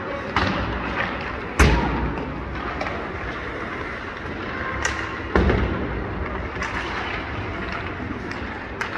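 Ice hockey pucks and sticks cracking against the rink's boards and glass during warm-up, a handful of sharp bangs with the two loudest about a second and a half and five and a half seconds in, each echoing through the arena over steady rink noise.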